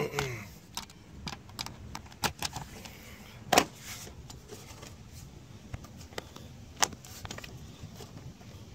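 Scattered clicks and knocks of plastic interior trim being handled and fitted into place in a car's footwell, with a few sharper snaps, the loudest about three and a half and seven seconds in.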